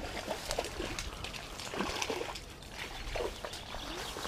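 Irregular water splashing from a hooked wild brown trout being played at the surface of a stream.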